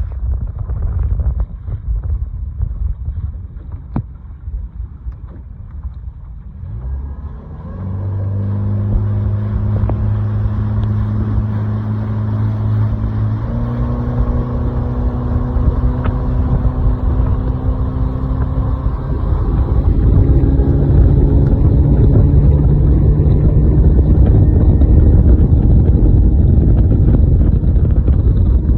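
Wind buffeting the microphone, then a boat's outboard motor throttling up about seven seconds in. It runs steadily, rising in pitch in two more steps as the boat speeds up and growing louder in the last third, with wind rushing over it.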